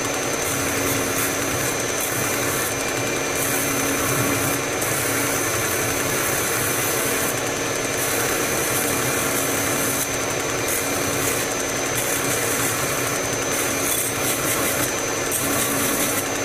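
Small belt grinder running while a steel spanner is pressed against the abrasive belt, grinding the metal. Under the steady motor hum and whine, the grinding hiss comes and goes as the steel is touched to the belt and lifted off.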